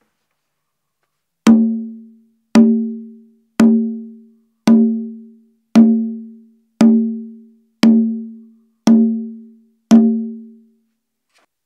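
Conga drum struck by hand nine times, about once a second, each stroke a clear pitched tone that rings briefly and dies away. The drum is tipped on rubberized faux-brick flooring, which the player finds deadens its sound much like carpet.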